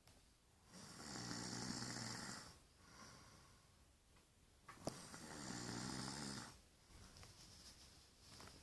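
A man snoring in his sleep: two long snores of about two seconds each, some four seconds apart, with a fainter breath between them.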